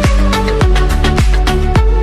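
Background electronic dance music with a steady drum beat about twice a second under held synth notes.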